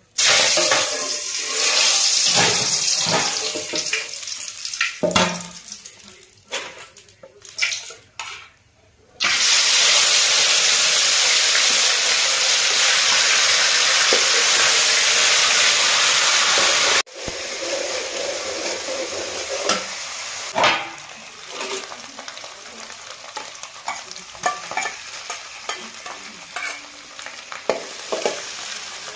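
Hot oil sizzling in a wide aluminium pan as ingredients go in, with a steel ladle scraping and stirring. About nine seconds in, the sizzle jumps to a loud steady hiss that cuts off suddenly some eight seconds later. After that, quieter frying continues under repeated ladle scrapes as the masala browns.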